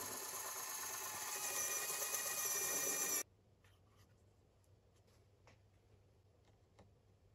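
Small high-speed electric drill whining as it drills a small hole for a pin, getting a little louder as it runs; it stops suddenly about three seconds in, followed by faint small clicks.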